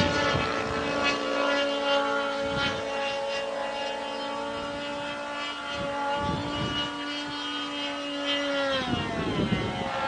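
Propeller-driven radio-control model airplane's engine running at a steady high pitch in flight, its note dropping near the end.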